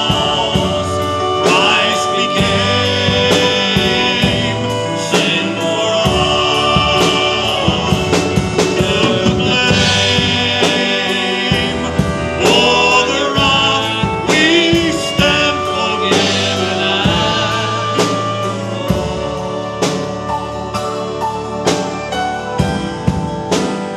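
Worship song: a singer over a band with a drum kit keeping a steady beat.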